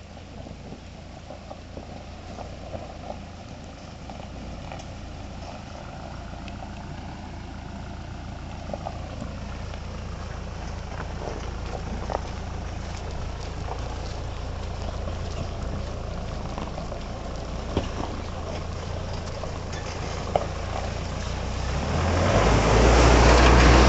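Mahindra Thar's engine running at low revs and slowly growing louder, with scattered short knocks, then swelling to a loud rev near the end.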